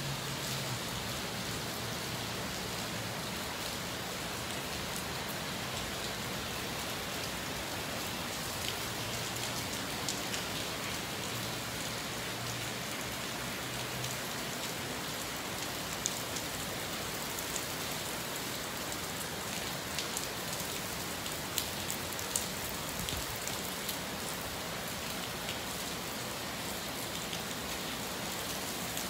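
Steady rain falling on wet pavement and a street: an even hiss with scattered sharp drop ticks.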